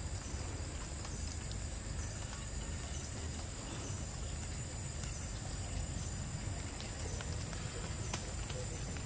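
Forest ambience: a steady high-pitched drone over a low, even hiss, with a few faint ticks.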